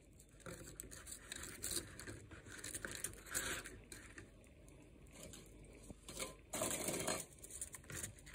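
Crisp toasted bread slices being handled and set down on a paper towel in a glass dish: soft, dry rustling and crinkling, loudest about a third of the way in and again briefly a little past the middle.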